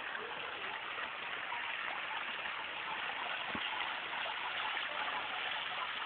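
Fountain water splashing steadily into its basin, an even, constant rush.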